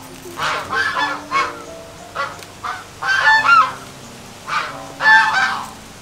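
Domestic fowl calling: a series of short, loud, pitched calls in clusters, loudest about three seconds in and again about five seconds in.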